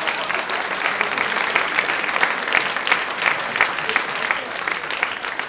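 Audience applauding: dense clapping that holds steady and begins to thin out near the end.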